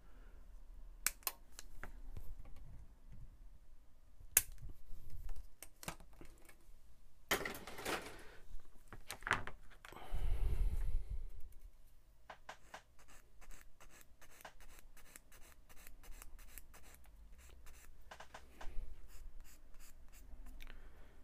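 Plastic model-kit parts being snipped off the sprue with hobby sprue cutters: a few sharp clicks, with louder handling noise about midway as the cutters are put down. Then a run of quick small scraping strokes as a cut part is cleaned up by hand.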